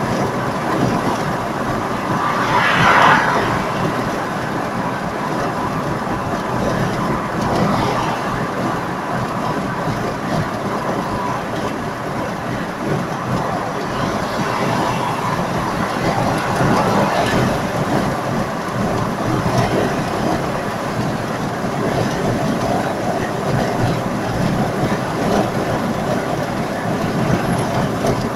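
Steady road and tyre noise of a car driving at motorway speed, heard from inside the cabin, with a few brief swells, the loudest about three seconds in.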